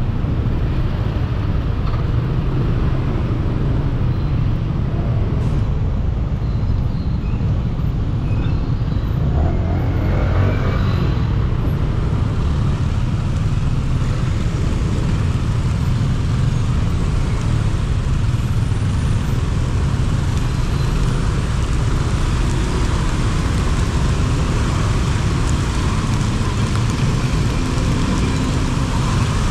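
Road traffic heard from a motorbike riding through city traffic in heavy rain: a steady low rumble of engines and wind over a hiss of rain and wet tyres. A louder engine note rises about ten seconds in.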